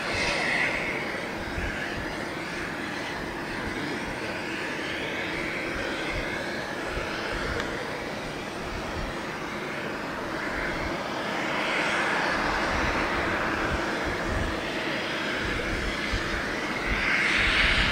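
Boeing 737-800 jet engines on final approach: a steady jet roar and whine that grows louder as the airliner nears, swelling about twelve seconds in and again near the end.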